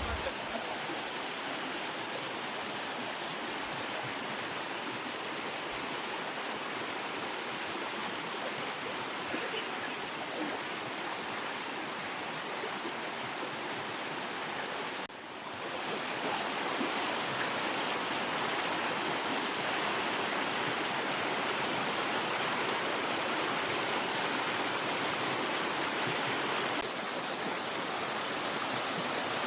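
Running water of a rocky stream below a small waterfall: a steady rushing hiss that dips briefly about halfway through.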